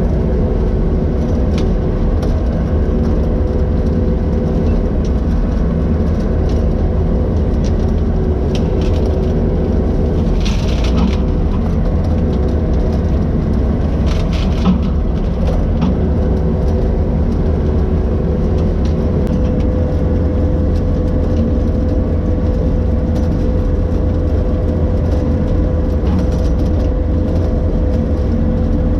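Skid steer engine running steadily under load with a steady whine, driving a bushhog, with a few short cracks around a third of the way in and about halfway through as small trees are cut down.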